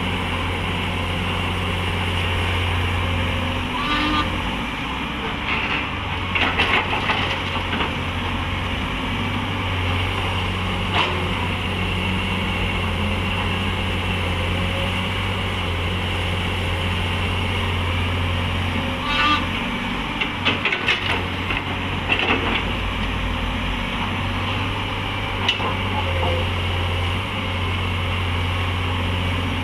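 Heavy diesel engines of an excavator and dump trucks running steadily, with scattered bursts of clanking and knocking as soil is loaded.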